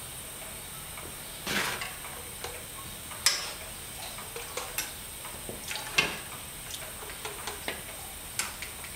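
Irregular metal clicks and taps from a pump oil can and handling of a small horizontal stationary steam engine as it is oiled before start-up, over a steady hiss.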